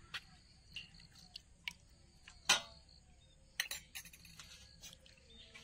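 A spoon tapping and scraping against a stainless-steel bowl of water as a spoonful of slaked lime is stirred in, then a hand swishing the water: scattered clicks and splashes, the loudest clink about two and a half seconds in.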